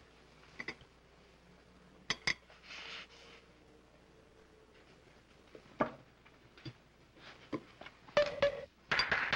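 Cutlery and china clinking at a breakfast table: a fork tapping and scraping on plates and mugs. Single clinks come a few seconds apart, then a busier flurry of knocks and clatter near the end.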